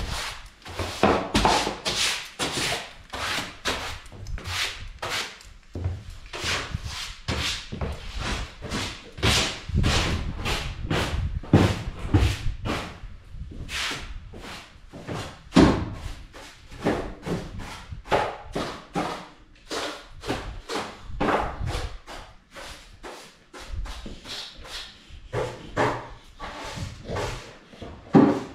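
A broom sweeping a hard floor in quick repeated strokes, about two or three a second, with a few louder knocks along the way.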